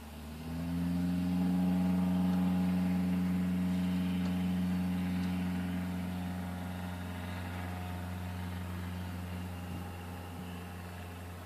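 Rotax 582 two-stroke twin of a Fly Synthesis Storch ultralight firing up on a cold start: the pitch rises briefly as it catches, then it settles into a steady idle that gradually gets a little quieter.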